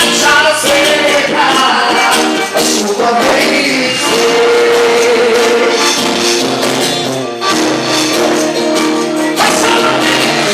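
Loud festa junina quadrilha music: a song with singing over sustained instrumental tones and shaken percussion.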